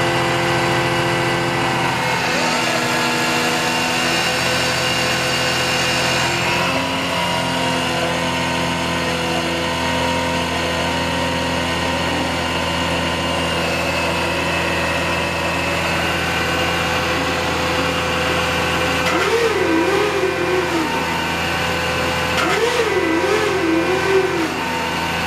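Drill rig's engine and hydraulic drive running steadily, its note shifting a few times in the first seconds. Twice near the end, as the spindle rotation control is worked, a wavering whine rises and falls over the running machine.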